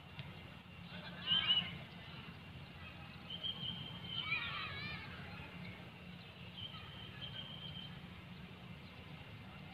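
Shouts from footballers carrying across an open grass pitch, the loudest about a second in and another near the middle, with two long steady high tones a few seconds apart.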